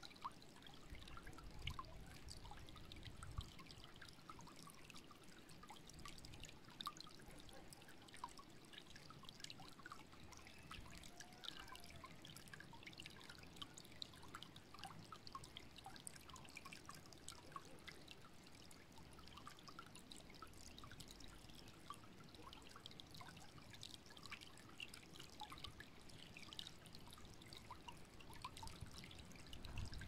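Shallow stream trickling faintly and steadily, a continuous patter of tiny splashes and drips.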